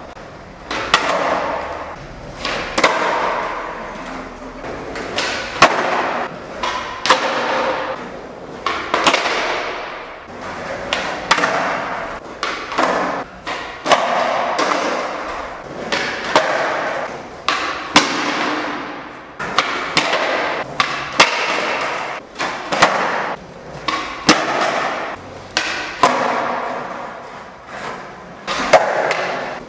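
Skateboard wheels rolling on concrete, broken again and again by sharp clacks of boards popping off the ground and slapping back down, echoing in an underground car park.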